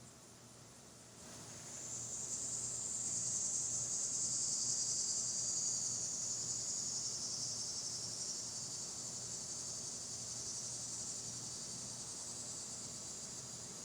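An insect's continuous high-pitched buzz, starting about a second in, swelling over a few seconds and then slowly fading.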